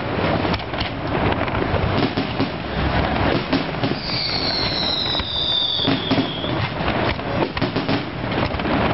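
Fireworks display going off in a dense, continuous barrage of bangs and crackles. A high whistle sounds for about two seconds near the middle, falling slightly in pitch.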